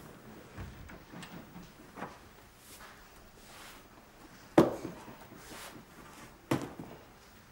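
Slow footsteps of heeled ankle boots on concrete: a few sharp heel clicks about two seconds apart, the loudest a little past the middle.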